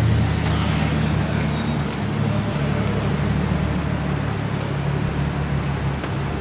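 Toyota JZX-chassis sedan's 1JZ straight-six idling steadily, heard at the exhaust tailpipe as a low, even note.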